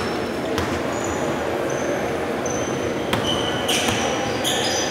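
Basketball game on a hardwood gym court: sneakers squeaking in short high chirps, more and more toward the end, with the ball bouncing a couple of times over the echoing hall noise.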